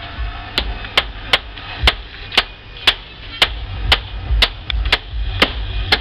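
Sharp knocks about twice a second, like steady hammering, each with a brief ring, over a low rumble.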